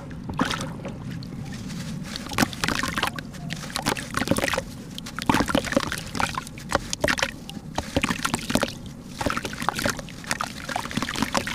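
A water-soaked block of red dirt is squeezed and crumbled by hand in a plastic tub of water. Water sloshes and splashes in many short, irregular bursts, and wet crumbs drip back into the water.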